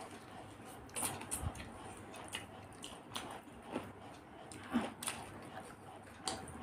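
Eating sounds: soft chewing and wet lip smacks, with scattered small clicks as rice and curry are mixed and eaten by hand.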